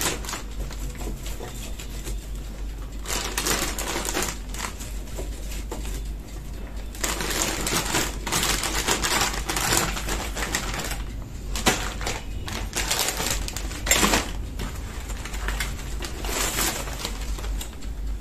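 Plastic sandwich bag crinkling and rustling in stretches as whole garlic cloves are handled and shaken inside it, with a couple of sharp clicks.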